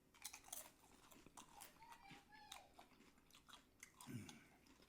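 Faint close-up chewing and crunching of a taco, a quick run of small crisp crunches and mouth noises.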